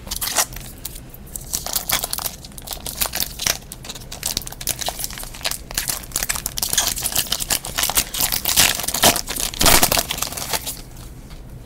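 Foil wrapper of a 2014 Topps Platinum football card pack crinkling and tearing as it is ripped open by hand, in a dense run of crackles that is loudest near the end.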